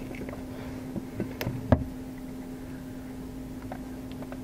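Central Asian tortoise biting and chewing cucumber: a few sharp clicks of its beak through the flesh in the first two seconds, the loudest just under two seconds in, then fainter scattered clicks.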